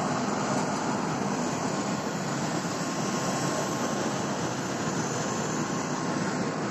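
Turboprop airliner engine running steadily, an even rushing noise with a faint low hum.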